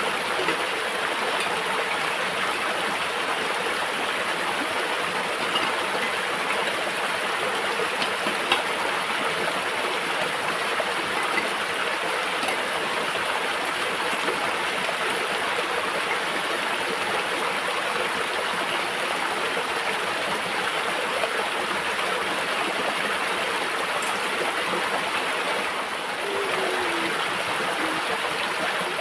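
Shallow stream running over rock, a steady rush of water, with a few light clinks as cups and plates are washed in it.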